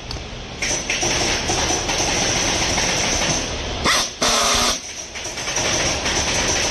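Air-powered handheld screwdriver running as it drives screws into a sofa's metal connector bracket.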